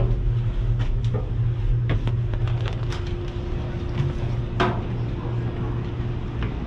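Footsteps and knocks on a submarine's steel hatch ladder and deck, with one sharp clank a little past halfway, over a steady low rumble.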